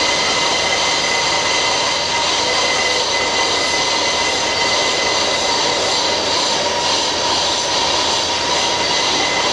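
Marble being turned on a lathe: a steady, loud scraping hiss of a metal cutting bar held against the spinning stone, with a steady high whine from the machine.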